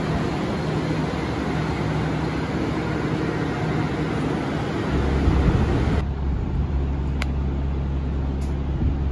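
Yui Rail monorail train running, heard from inside the car: a steady rumble and hiss. About five seconds in a deeper hum comes in, and a second later the hiss falls away.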